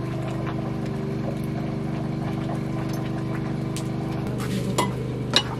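A steady low mechanical drone with a constant pitch, and two sharp knocks near the end.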